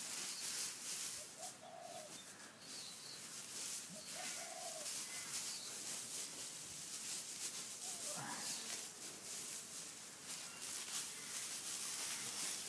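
Dry straw mulch rustling and crackling as it is scooped up and tossed by hand. A bird gives two short low calls in the background, about a second and a half in and again about three seconds later.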